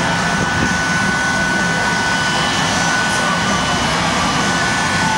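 Shockwave jet truck's jet engine running steadily, a continuous rushing noise with a high, steady whine.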